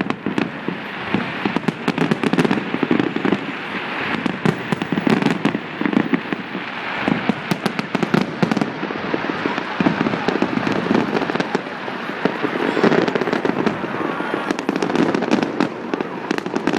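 Fireworks display in a dense barrage: many rapid, overlapping bangs with no break.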